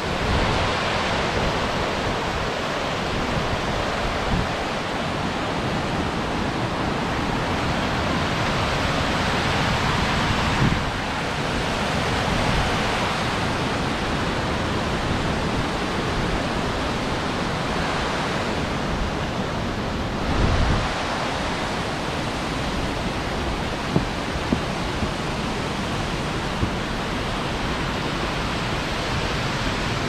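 Yudaki waterfall rushing steadily as white water pours down a long rocky slope, with a few brief low bumps about a third and two thirds of the way through.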